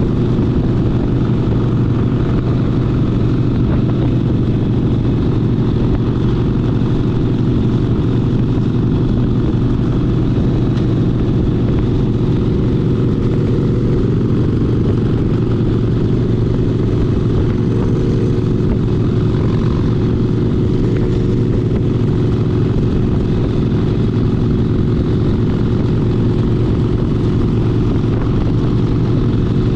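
Harley-Davidson Sportster 72's 1200 cc V-twin engine running steadily while the bike is ridden, a deep even drone with no big changes in revs.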